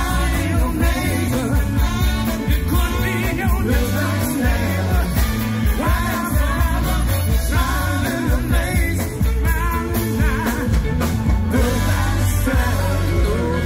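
Live band with a horn section playing a song, with lead and backing vocals over a steady drum and bass beat.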